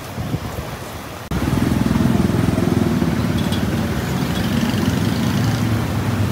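Street traffic with an engine running close by, a steady low hum under road noise. It jumps abruptly louder about a second in.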